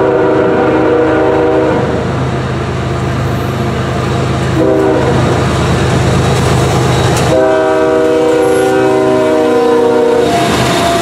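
Norfolk Southern freight train's diesel locomotive sounding its air horn for a grade crossing. A long blast ends about two seconds in, a short blast comes around the middle, and a long blast runs from about seven to ten seconds, with the diesel engines' steady low drone between the blasts. Near the end the locomotives pass close by.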